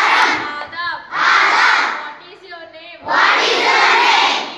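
A woman's voice calls out a short line and a large group of schoolchildren shouts it back in unison, call and response, with three loud group replies.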